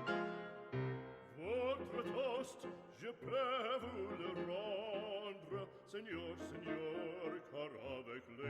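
Background music in a classical operatic style. Steady instrumental notes open it, and from about a second and a half in a voice sings with a strong vibrato.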